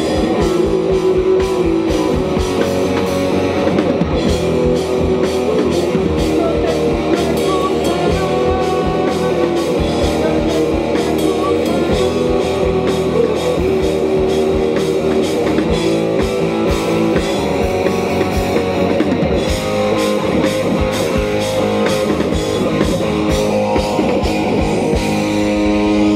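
Live rock band playing loud amplified music: electric guitar over a drum kit with a steady beat.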